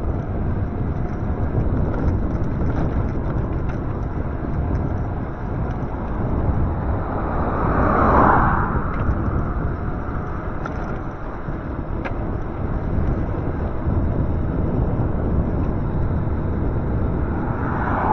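Cars passing on the road, one swelling and fading about eight seconds in and another near the end, over a steady rush of wind and road noise.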